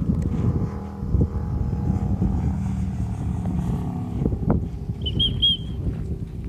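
Steady low rumble of a motor vehicle's engine, with a brief high warbling chirp about five seconds in.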